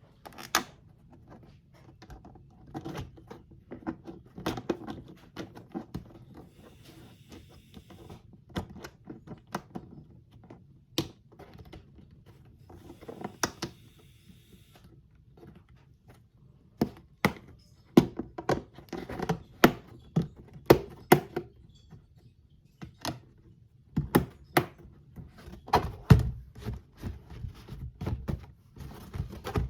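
White plastic multipurpose box being handled, giving irregular clicks, taps and knocks of hard plastic, sparse at first and coming thicker and louder in the second half.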